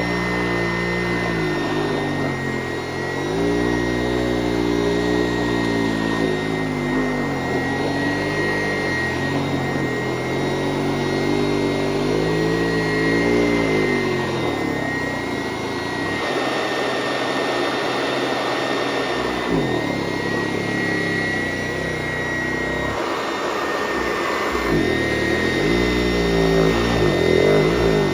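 PowrFlite PF70 commercial upright vacuum running on carpet, its brush-roll belt in poor shape. A steady high whine sits over a lower hum that rises and falls in pitch every few seconds as the vacuum is worked back and forth.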